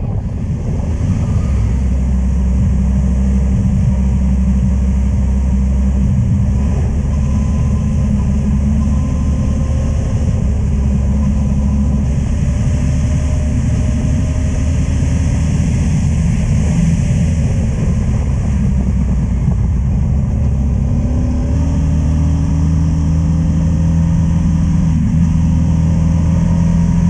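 Motorcycle engine running steadily under way, with wind noise on the microphone. About two-thirds of the way through, the engine note shifts to a higher, steadier pitch.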